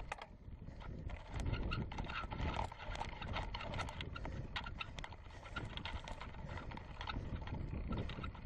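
Mountain bike climbing slowly up a steep dirt-and-gravel track: tyres crunching over loose stones, with irregular clicks and rattles from the bike, over a low rumble of wind on the microphone.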